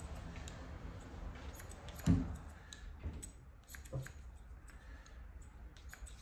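Barber's scissors snipping hair over a comb: a scatter of small, crisp clicks, with a louder dull bump about two seconds in.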